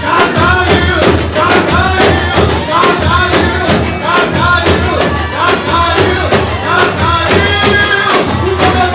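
Live Brazilian Pentecostal worship song played loudly through a church PA, a man singing into a microphone over a fast beat with tambourines shaken along.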